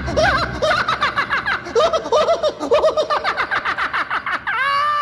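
A person laughing in a rapid, high-pitched cackle, about five or six 'ha' syllables a second. It ends with one long drawn-out note, about four and a half seconds in, that falls away at the end.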